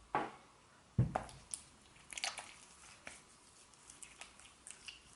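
Small objects being handled: two soft knocks about a second apart, then light clicks and rustling.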